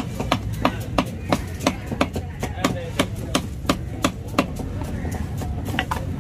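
Large knife chopping tuna loin into chunks on a wooden log chopping block: sharp, even knocks about three a second, thinning out to a few strokes in the last two seconds.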